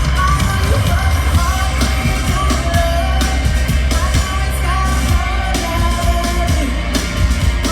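Live concert music: a song played with a heavy, steady bass, with a voice singing a wavering melody over it.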